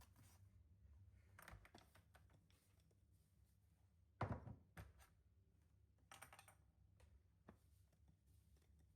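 Near-quiet room with a few soft knocks and clicks of objects being handled, the loudest about four seconds in.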